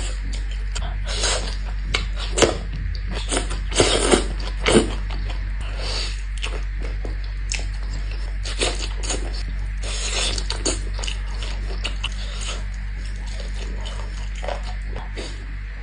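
Close-miked eating sounds: irregular crisp clicks and wet smacks of biting and chewing grilled skewered meat, densest in the first five seconds, over a steady low hum.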